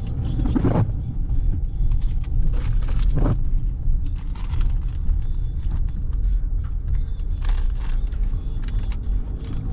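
Low, steady rumble of a car driving slowly, heard from inside the cabin, with a couple of knocks about half a second and three seconds in.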